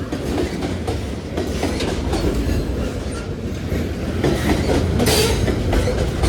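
Freight train rolling past at speed: a steady low rumble of the cars with the clickety-clack of wheels over the rail joints, and a brief flare of hiss about five seconds in.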